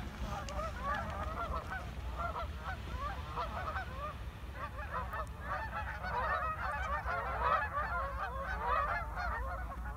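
A flock of Canada geese honking loudly, just flushed from the water and flying off. Many short calls overlap throughout and grow denser in the second half.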